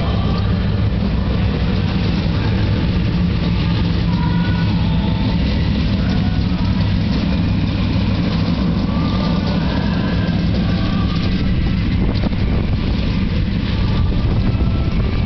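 Winged sprint cars' V8 engines rumbling steadily at low speed as the cars roll slowly around the dirt track in a parade lap.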